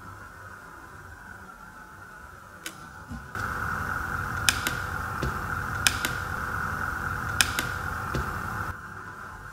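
Rocker switch on a Leister Hotwind System hot-air blower clicking several times, some clicks in quick pairs, as it is pressed to step through the setup menu. Under the clicks is a steady rushing noise that grows louder about three seconds in and drops back near the end.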